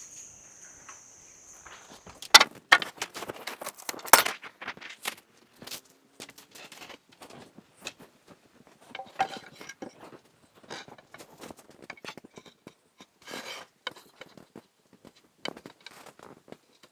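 Irregular knocks, taps and clatter of wood and tools being handled during carpentry work, the loudest two about two and four seconds in. A steady high-pitched buzz stops about two seconds in.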